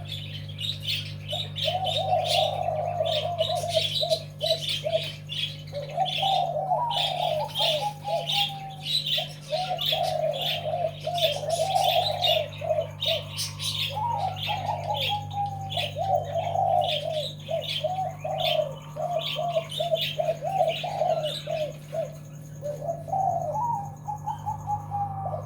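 Zebra dove (Java dove) cooing in long runs of quick, stuttering notes, phrase after phrase, with small birds chirping high above it and a steady low hum underneath.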